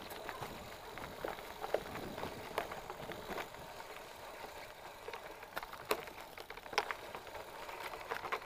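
Mountain bike riding down a rough forest dirt trail: steady tyre noise on dirt, broken by frequent sharp knocks and rattles as the bike goes over roots and stones.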